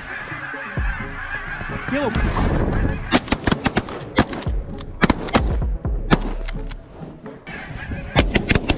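A large flock of geese honking continuously overhead, then a rapid volley of shotgun shots from several hunters starting about three seconds in, with a second burst of shots near the end.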